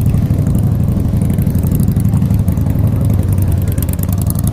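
A motorcycle engine running steadily at a constant, unchanging pitch.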